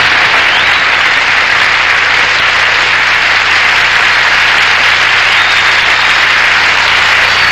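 Studio audience applauding steadily at the end of a song, with a couple of faint high whistles.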